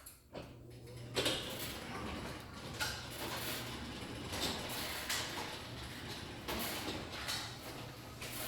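Aluminum glass sectional garage door closing, driven by a side-mount LiftMaster 8500 jackshaft opener: a steady low motor hum with irregular clacks and rattles from the moving door as it comes down.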